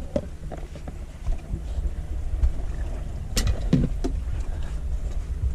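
Low, buffeting rumble of wind on the microphone aboard a boat on open water. A sharp knock comes about three and a half seconds in, followed by a softer one.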